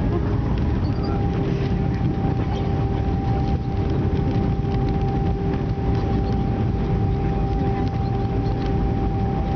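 Airbus A320 cabin noise during the landing rollout: a steady low rumble from the engines and the wheels on the runway, with a steady whine.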